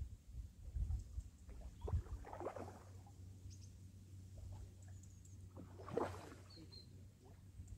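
Hooked trout splashing briefly at the surface while being played on a bent fly rod, two louder splashes about two and a half and six seconds in, among small clicks. A few faint high bird chirps.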